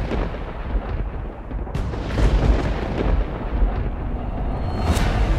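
Cinematic intro sound effects: a deep, continuous rumble with booming, thunder-like hits, one sharp crack near the end.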